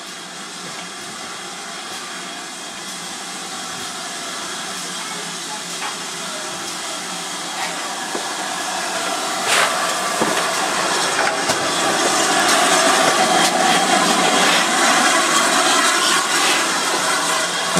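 GWR 42xx 2-8-0 tank engine 4247 approaching and running in with its coaches: a steady hiss of steam and running noise that grows louder as it nears, with a couple of sharp clanks about halfway.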